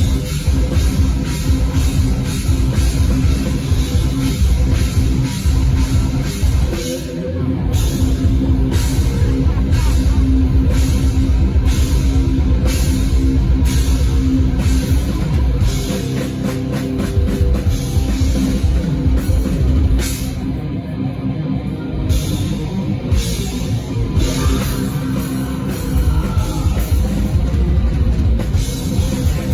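Rock band playing live with guitars and a drum kit, with no vocals. The bass and drums drop out briefly about 7 seconds in and again about two-thirds of the way through.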